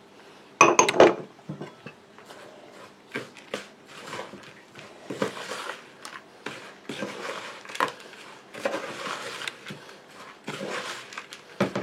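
Hands working a sticky suet, flour and seed fat-ball mix, in irregular soft rubbing, squishing strokes, with a louder knock or clatter about a second in.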